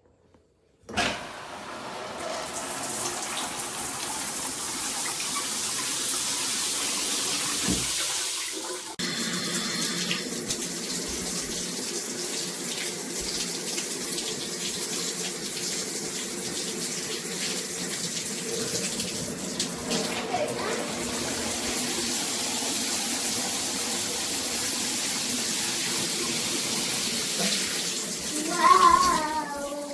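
Water running steadily from a shower faucet into the tub. It starts about a second in, breaks off briefly near the middle, and then runs on. A short louder sound comes near the end.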